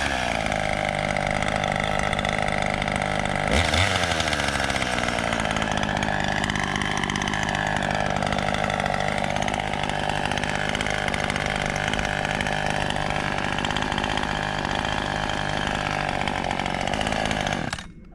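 Husqvarna 540 XP Mk III two-stroke chainsaw coming down from a rev about three and a half seconds in, then idling steadily. It is switched off and stops abruptly near the end.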